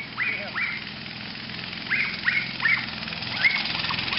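Small go-kart engine idling steadily while a dog gives short, high yaps in twos and threes.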